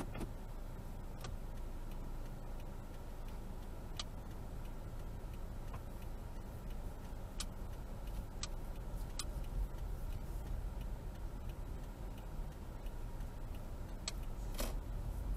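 Low, steady rumble of a car's engine and road noise heard inside the cabin, growing a little louder near the end as the car moves off. A few sharp clicks come at irregular spacing, the strongest near the end.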